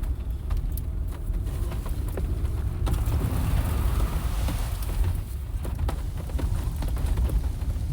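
Off-road vehicle driving through mud, heard from inside the cabin: a steady low rumble with frequent knocks and jolts from the suspension and body. About three seconds in, a spell of mud and water splashing against the car's body and underside lasts a couple of seconds.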